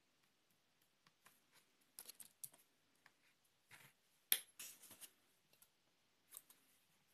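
Faint clicks and rustling of hands handling a small pair of scissors and yarn while trimming the excess yarn ends of an embroidered nose on a crocheted toy. A sharp click about four seconds in is the loudest sound.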